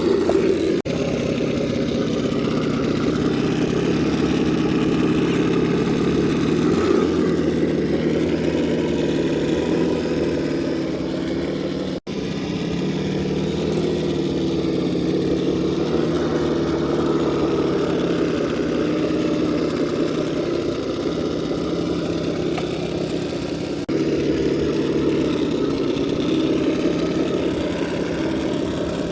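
Axial SCX10 II RC crawler's electric motor and gearbox whining as it crawls over rocks, the pitch rising and falling with the throttle. The sound breaks off sharply about 12 seconds in and changes abruptly again near the end.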